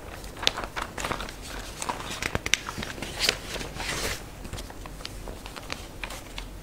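Sheets of printed paper being handled and turned over: crackling rustles and small clicks, busiest over the first four seconds or so, then thinning out.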